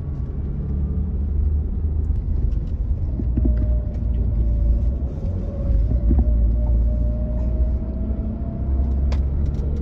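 Engine and road noise inside a moving car's cabin: a steady low rumble with a faint steady whine over it, and one sharp click near the end.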